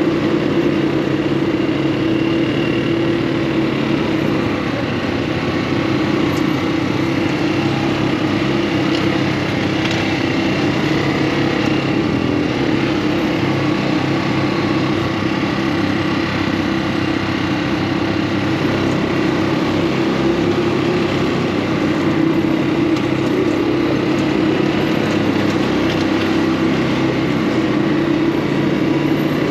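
Small engine of an off-road buggy running steadily while under way.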